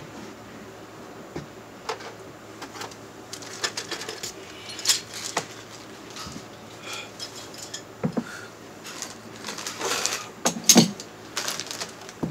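Irregular metallic clinks and knocks of tools and plumbing parts being handled during a water heater hookup, the loudest coming in a cluster near the end, over a faint steady hum.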